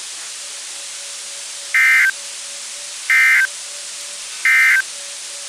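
Three short bursts of NOAA Weather Radio SAME digital data tones, each about a third of a second long and a little over a second apart, over steady radio hiss: the end-of-message code that closes the Required Weekly Test.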